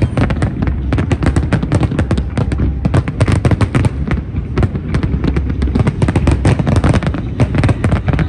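New Year fireworks display: a dense, continuous barrage of bangs and crackles, many per second over a deep low rumble.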